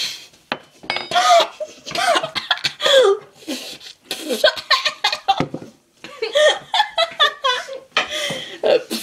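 Young women laughing hard in repeated bursts, mixed with short breathy outbursts.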